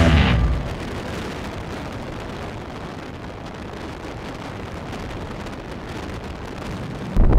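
Wind rush on a helmet-mounted camera microphone on a moving motorcycle, a steady rumbling noise. Music stops about half a second in, and the wind noise jumps much louder just before the end.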